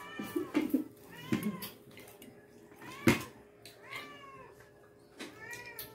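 A cat meowing repeatedly, about five short calls that each rise and fall in pitch, mixed with sharp clicks and knocks from plates and cutlery, the loudest about three seconds in.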